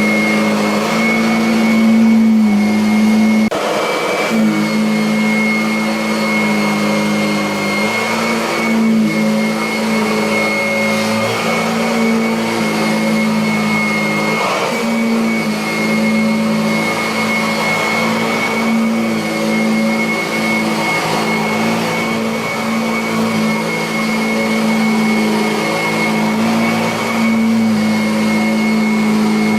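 Kirby Avalir upright vacuum cleaner running steadily on carpet: a continuous motor drone with a high whine, shifting only slightly in level and tone.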